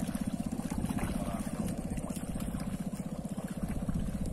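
Small boat engine running steadily, with a fast, even pulse, as the boat gets under way.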